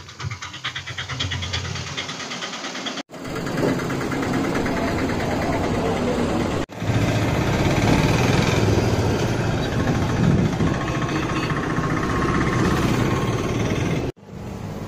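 Street noise with a vehicle engine running, heard while walking. The sound drops out abruptly three times where the recording is cut.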